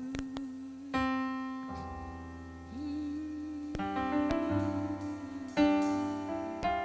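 Electric keyboard playing slow, sustained worship chords over low bass notes, the chords changing every second or two.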